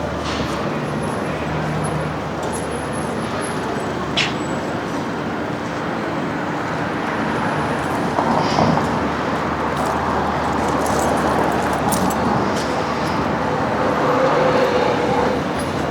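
Busy street ambience dominated by steady road-traffic noise from passing vehicles, with a brief sharp high squeak about four seconds in.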